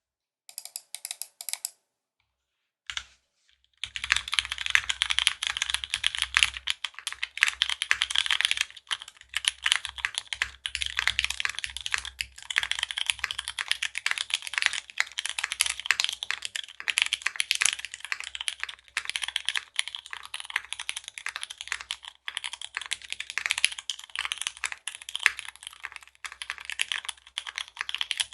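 Fast, continuous typing on a custom mechanical keyboard with Cherry MX Hyperglide Brown tactile switches, an aluminium plate and GMK keycaps: a steady stream of key clacks. The typing starts about four seconds in, after a short sound and a single click.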